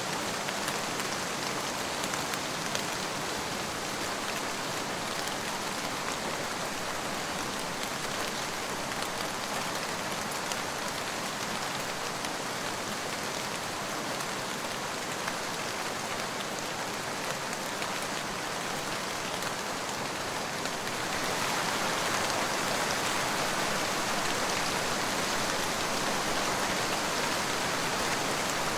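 Steady rain falling, an even hiss of countless drops; it grows louder about three quarters of the way through.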